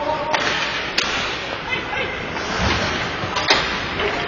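Ice hockey play in a rink: skates scraping and hissing on the ice, with sharp cracks of stick and puck, the loudest about a second in and again about three and a half seconds in.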